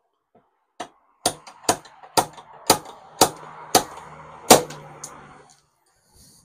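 Slide hammer of a glue-pull dent repair kit striking repeatedly, about eight sharp metallic knocks at roughly two a second, the last one the loudest. It is yanking a glued tab on a car tailgate dent that will not pull out because the glue is not holding on the waxed paint.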